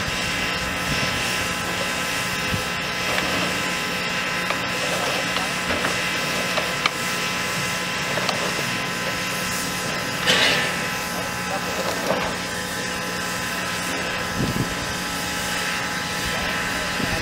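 Steady machine hum with a whine, with occasional knocks and rattles of coal as buckets of coal are lifted and tipped onto a steam locomotive.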